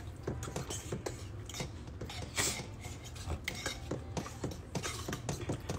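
A utensil stirring food in a dish, with irregular clinks and scrapes against the dish.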